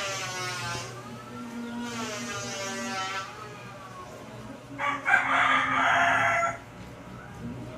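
Rooster crowing: long drawn-out crows over the first three seconds, then a louder, harsher crow lasting about a second and a half, starting about five seconds in.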